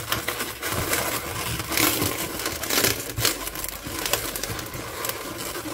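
Inflated 260 latex modelling balloons rubbing and squeaking against each other under the hands as an orange balloon is wrapped and twisted onto a bear-ear twist of another balloon, in irregular scratchy squeaks.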